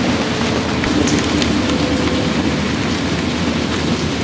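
Storm wind and rain on a sailboat at anchor: a steady low rumble of wind, with scattered raindrop ticks.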